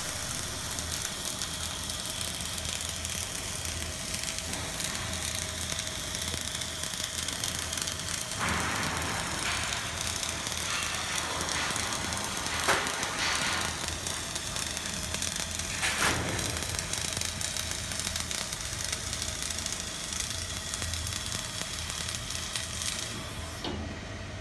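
CO2 gas-shielded arc welding on steel: the welding arc crackles and sizzles steadily as the bead is laid, with a couple of sharper pops near the middle.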